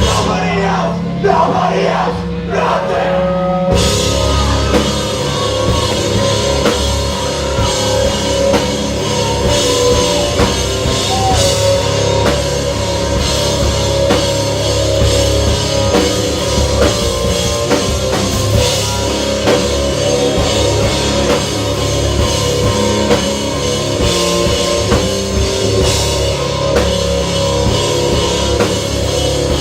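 Live rock band playing: drum kit, bass and guitars. After a sparse opening of held notes, the full band comes in about four seconds in and plays on at full volume.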